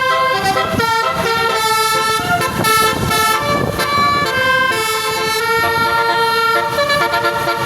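Telolet basuri musical bus horn playing a tune: several horn notes sound together and shift to new pitches every half second or so.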